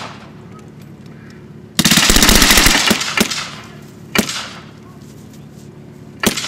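Blank gunfire in a staged firefight: a rapid burst of automatic fire lasting about a second, about two seconds in, followed by single rifle shots, one a second or so apart and another near the end, each trailing off in an echo.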